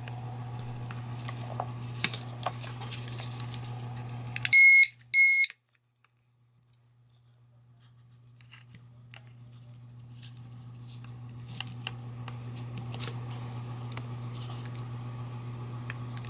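Magnetic-sensor open/close alarm giving two loud, high-pitched beeps about five seconds in, each about half a second long, in quick succession. A steady low hum and faint clicks run underneath before and after.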